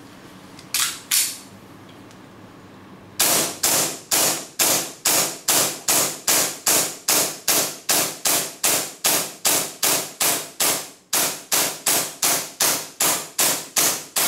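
WE Hi-Capa 4th series gas blowback airsoft pistol, powered by green gas from a Tokyo Marui magazine, firing single shots in a long steady string of about two to three reports a second, each with the clack of the slide cycling. The Marui magazine feeds and cycles the WE pistol through the whole magazine. Two sharp clacks sound about a second in, before the string starts.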